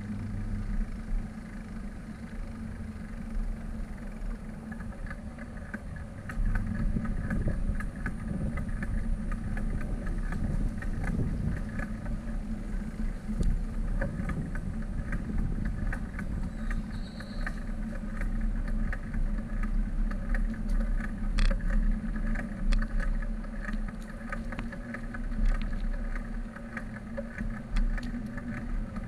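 Riding noise from a bicycle on paved paths: a steady low rumble of wind and tyres on the camera microphone, with many small rattling clicks from the bike.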